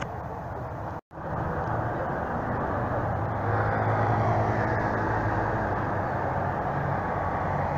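Large passenger ferry's engines running with a steady low hum while it manoeuvres at the quay. The sound drops out for an instant about a second in.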